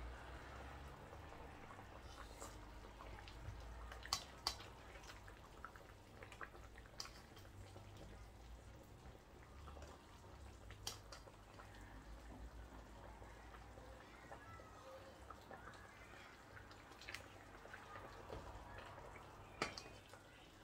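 Faint scattered clicks and taps of a metal serving spoon against a steel pot and a plate as pepper soup is dished out, over a low hum. The sharpest taps come about four seconds in and again near the end.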